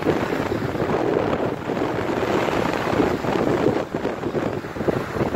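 Wind buffeting the phone's microphone in a loud, gusting rumble, with small lake waves washing onto the shore beneath it.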